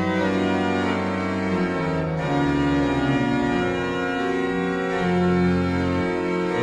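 Organ music: slow, sustained chords that move to a new chord every second or two.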